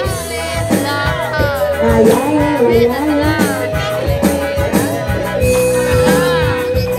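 Live Jaranan accompaniment music: regular drum strokes under a wavering, bending melodic line with singing.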